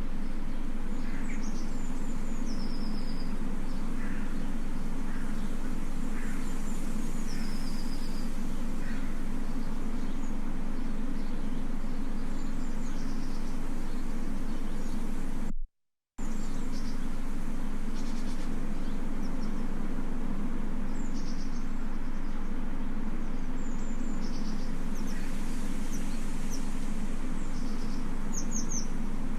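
A steady low hum with birds chirping over it in short, scattered calls. The sound cuts out briefly about 16 seconds in, then carries on as before.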